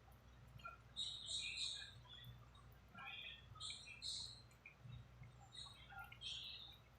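Birds chirping faintly in short bursts of high calls, the strongest about a second in and again around four seconds in, over a low steady hum.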